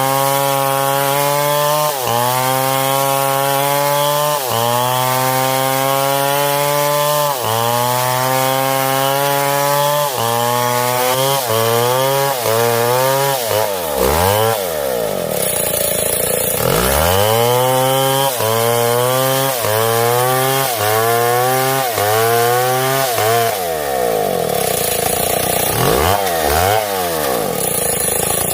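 STIHL MS661 two-stroke chainsaw running at high revs while cutting wood, its pitch sagging and recovering every second or two. Twice it falls away and swings back up several times as the throttle is let off and opened again.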